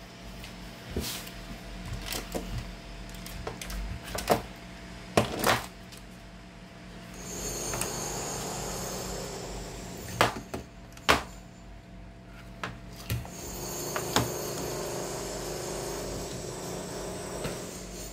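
Aluminium chassis of a homebuilt regenerative radio being handled and turned over on a workbench: a string of sharp metallic knocks and clicks, with stretches of rubbing and scraping, over a faint steady low hum.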